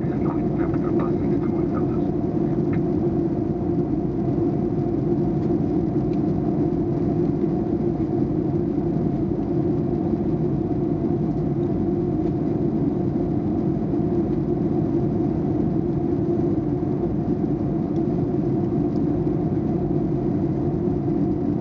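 Steady cabin noise of an airliner in flight: an even rumble of engines and rushing air, with a constant low hum running through it.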